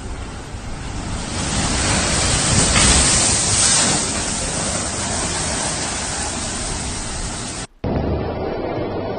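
Storm-force wind rushing in through an open glass doorway, a loud, even hiss that swells about three seconds in. Near the end it cuts sharply to duller wind noise buffeting the microphone.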